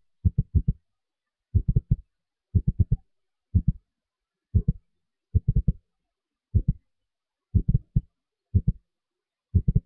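Low, muffled thumps in quick clusters of two to four, repeating about once a second with silence in between.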